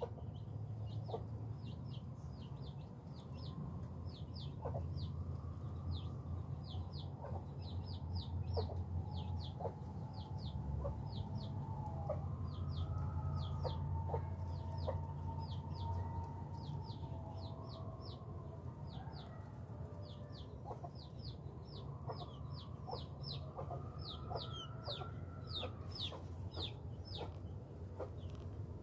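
Chickens clucking, with a few long calls that rise and fall, over a steady low hum. A run of short high chirps, about two a second, continues throughout.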